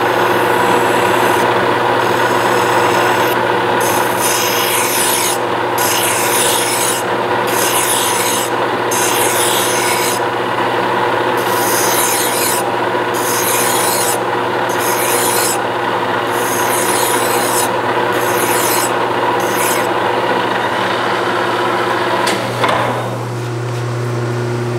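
A hand file is drawn in repeated strokes, about one a second, across a steel workpiece spinning in a metal lathe, over the lathe's steady hum. The file strokes stop about twenty seconds in, and only the hum carries on.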